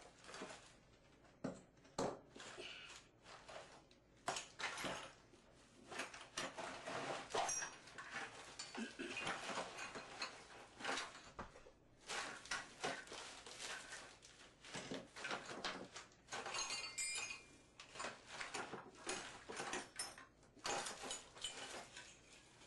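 Irregular metallic clicking, clinking and scraping of small parts and tools being handled while working on a shower valve.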